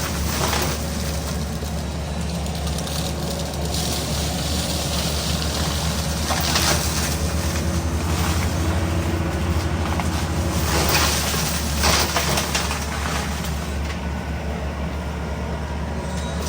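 Yanmar Vio55 excavator's diesel engine running steadily under load while its FEMAC T9 mulcher head works the undergrowth, with several short crackling bursts of shredding spread through.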